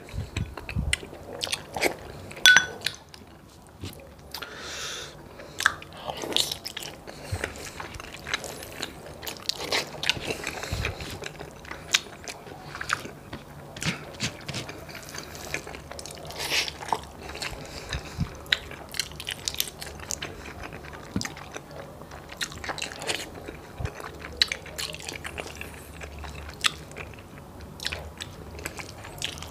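Close-miked chewing and mouth sounds of a person eating, with irregular wet smacks and clicks.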